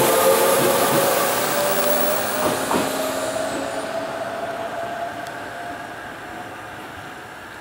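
Tobu 100 series 'Spacia' limited express electric train accelerating away from a station. Its motor whine rises slowly in pitch while the running noise fades as it pulls off into the distance.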